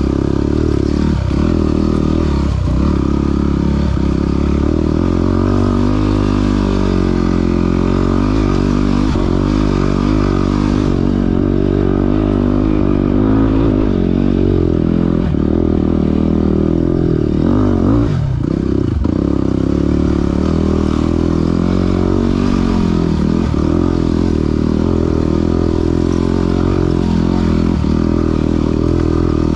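Yamaha WR250R's single-cylinder four-stroke engine running under way, its note rising and falling with the throttle, with a few brief dips.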